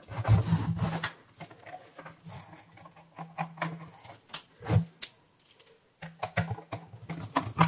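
Screwdriver clicking and scraping against the metal case of a switching power supply as its cover screws are taken out: scattered small metallic clicks and knocks, thickest near the end.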